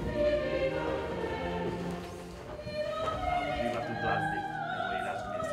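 Classical music: an operatic voice singing long held notes with orchestral accompaniment.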